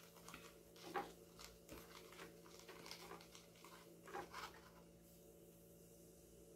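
Faint gritty scratching of a hand rubbing baking soda over the rusty plate of an electric hot plate, in irregular strokes that stop about five seconds in.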